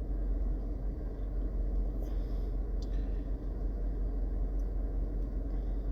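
Steady low background rumble with no speech, and a few faint short clicks in the middle of the pause.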